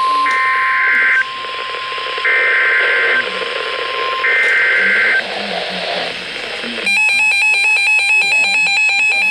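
Emergency alert broadcast tones. A steady single-pitch alert tone runs until about four seconds in, overlaid by three one-second screeching bursts of digital alert data. About seven seconds in, a rapid, stepped electronic beeping alert begins.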